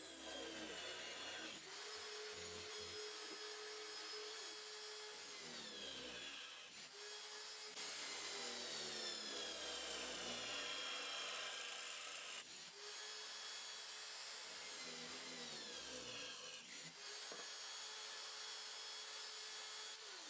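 Corded electric drill running and boring through a square steel tube, the bit cutting into the metal with a steady hum and high sliding whines. The run breaks off and starts again several times.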